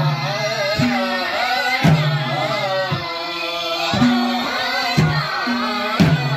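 Men singing a slow song together, accompanied by madal drums: two-headed Nepali hand drums struck about once a second, each stroke followed by a short deep boom from the bass head.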